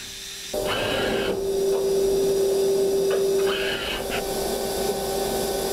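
DMU 50 CNC machining centre running inside its enclosure: a steady spindle tone under a loud rushing noise that comes on suddenly about half a second in.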